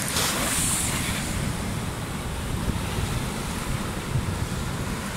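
Wind buffeting the microphone over the steady wash of surf breaking on the shore, with a brief louder hiss in the first second or so.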